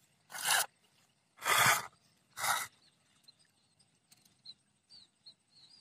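Three short rustles of tall grass brushing close to the microphone within the first three seconds, followed by a few faint, high, quick chirps.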